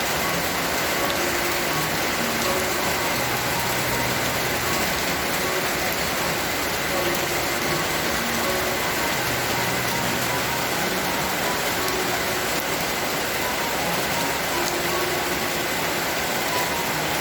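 Steady, heavy rain falling as an even hiss.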